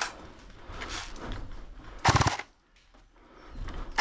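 Airsoft replica firing a short full-auto burst of rapid shots, about half a second long, around two seconds in.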